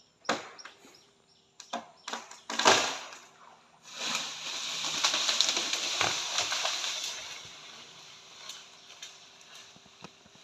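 Several sharp cracks and knocks, the loudest about two and a half seconds in, then a rustling rush of leaves and branches for about three seconds that slowly fades, as cut tree branches crash down.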